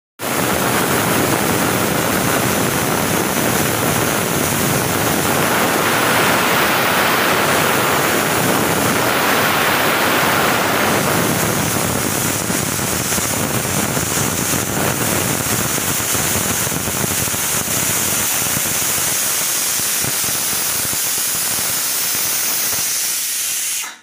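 Aluminium pressure cooker on a gas burner whistling: steam jets from the weight valve in one long, loud, steady hiss.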